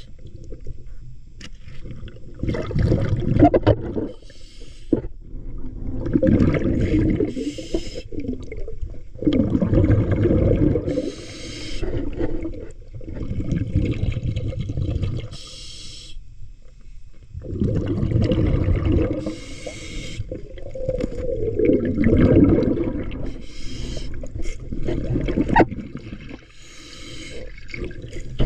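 Muffled sloshing and bubbling water around a camera held just under the sea surface. It comes in low surges every few seconds, with fainter hissing between them.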